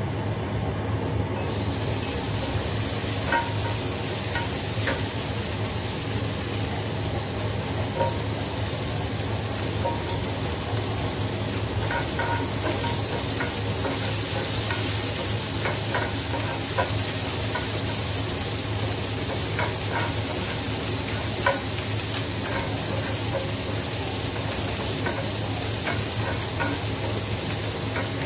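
Chopped vegetables sizzling in hot oil in a frying pan, stirred with a wooden spatula that taps and scrapes the pan now and then. The sizzle starts suddenly about a second in.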